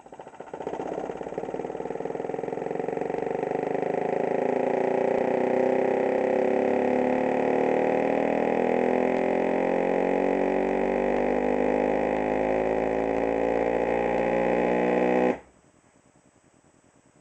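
Custom-built 12-inch subwoofer driven hard on a deep low tone whose pitch creeps slowly upward, with a dense buzzy stack of overtones above it. It builds over the first few seconds, holds, and cuts off suddenly about fifteen seconds in.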